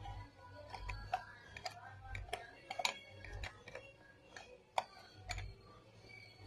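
Socket wrench turning the chain-cover bolts on a motorcycle: irregular metallic clicks and ticks, the sharpest just before five seconds in, over dull low bumps of handling.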